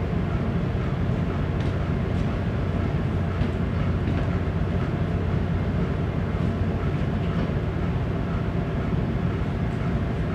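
Steady low drone of a bulk carrier's engine and machinery under way, heard on the ship's bridge, with a few faint ticks over it.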